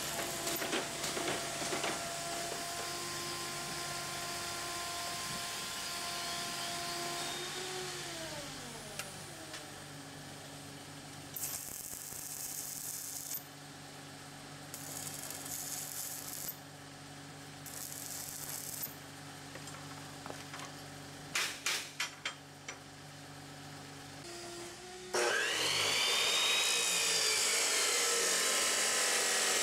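Arc welding on steel square tubing: the arc crackles in several short runs, with a motor hum winding down about eight seconds in and a few sharp taps later. Near the end an abrasive cut-off saw starts and cuts into a steel bar, a loud steady whine with grinding noise.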